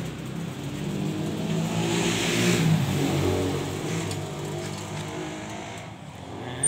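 A motor vehicle's engine passing by, growing louder to a peak about two and a half seconds in and then fading away.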